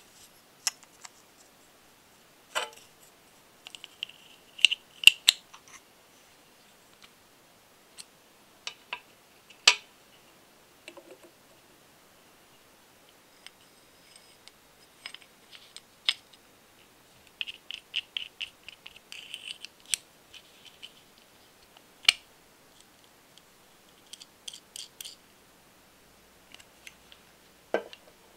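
Sharp clicks and light taps of small metal model-kit parts being handled and fitted together, with a few short runs of rapid ticking, around 5 seconds in and again around 18 seconds in.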